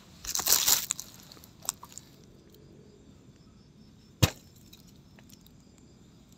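Nylon sleeping bag rustling and crinkling as someone shifts inside it, then about four seconds in a single sharp knock, the loudest sound.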